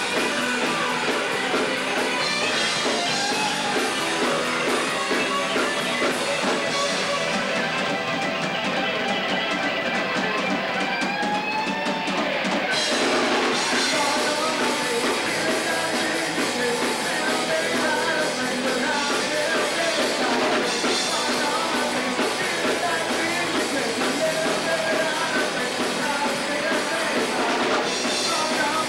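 A rock band playing live: guitars and a drum kit, with singing.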